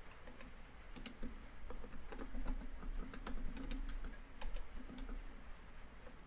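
Laptop keyboard typing: quick, irregular keystrokes, busiest in the middle, over a steady hiss of rain on a tin roof.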